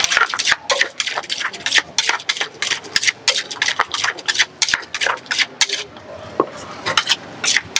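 A wooden pestle pounds tomatoes and chillies in a clay som tam mortar with quick, repeated strikes, bruising the ingredients for a spicy Thai salad.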